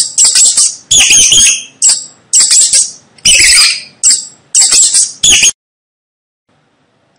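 Mice squeaking: about eight quick bouts of loud, high-pitched, warbling squeaks, one after another, then a pause of over a second near the end.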